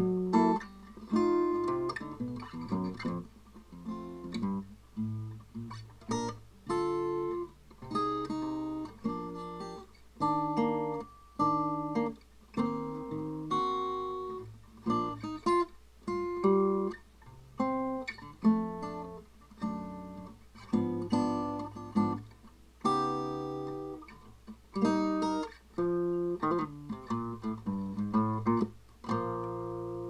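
Background music: acoustic guitar picking a run of plucked notes and chords, ending on a held chord near the end.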